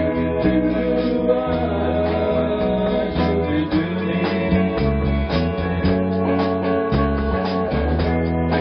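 Music: guitar-led song played at a steady level, with plucked notes over sustained bass notes and a voice singing along in places.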